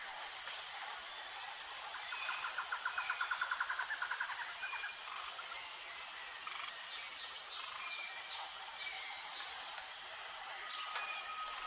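Tropical forest ambience: a steady high-pitched insect drone with scattered bird calls. About two seconds in, a rapid pulsing call of about ten notes a second runs for two seconds, and near the end a steady whistle-like tone begins.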